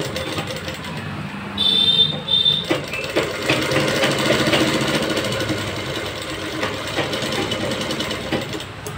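Sewing machine running steadily, its needle stitching a seam through fabric with a fast, even chatter. A short high tone sounds twice about two seconds in.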